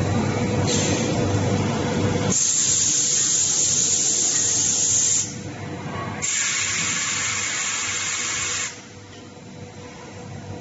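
Wheel hub production-line machinery running: a low rumble with a faint steady hum, then two spells of loud, steady high hiss, each two to three seconds long and each starting and stopping abruptly.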